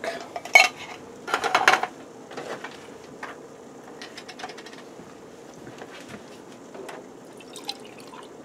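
A few knocks and clicks of kitchen items being handled, the loudest a short clatter about a second and a half in, then milk poured from a plastic gallon jug into an empty soup can near the end.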